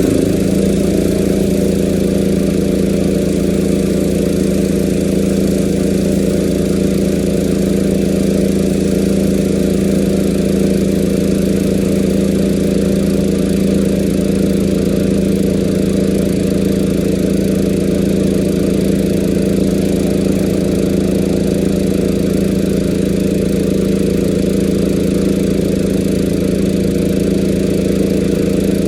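An engine running at a constant speed with a strong, steady hum, its pitch settling within the first second.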